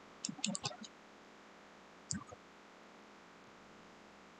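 A few computer keyboard and mouse clicks: a quick cluster in the first second and one more about two seconds in, over a faint steady hiss.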